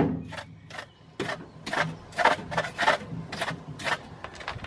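Hand tool working on a battery terminal in a metal battery box: a run of short metallic clicks and scrapes, about three or four a second.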